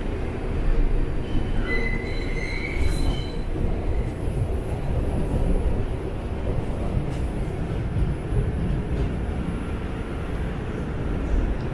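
New York City subway train running between stations, heard from inside the car as a steady low rumble of wheels on the track. About two seconds in, a brief high-pitched wheel squeal lasts a second or so.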